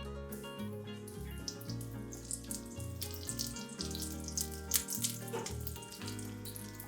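Running water, such as a kitchen tap, heard over background music through the middle few seconds.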